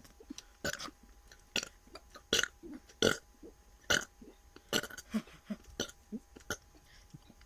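A person burping over and over: a string of short, sharp burps, a little more than one a second, with brief quiet gaps between them.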